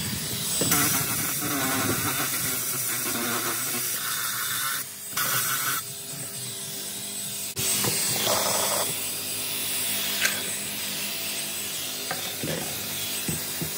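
Cordless drill spinning a brush pad against carpet: a steady scrubbing rub with the drill motor's whine underneath. It is agitating carpet cleaner into the carpet. The sound changes abruptly a few times.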